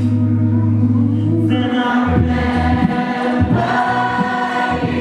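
Male a cappella group singing into microphones: close vocal harmonies over a held low bass note, filling out with more voices about a second and a half in, with short percussive beats under the singing after that.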